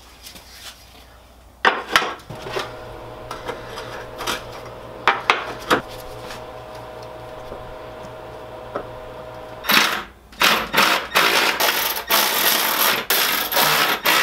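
Metal hand tools and bolts clinking and knocking while subframe spacers and cradle bolts are fitted, with a steady hum from about two seconds in that stops about ten seconds in. Near the end comes a fast run of metallic clicking and clatter.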